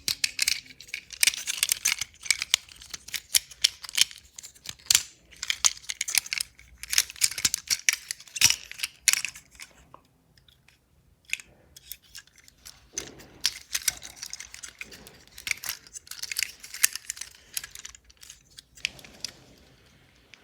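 Small plastic transforming toy robot being folded by hand: its joints and parts click, snap and scrape in quick irregular bursts. The clicking eases off for a couple of seconds about halfway through, then starts again.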